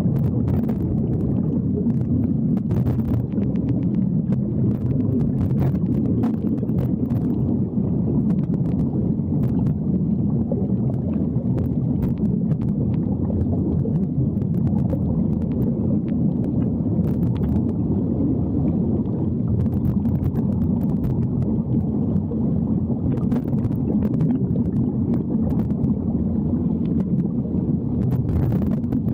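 Steady, muffled underwater rumble heard through a camera's waterproof housing, with scattered faint clicks and crackles.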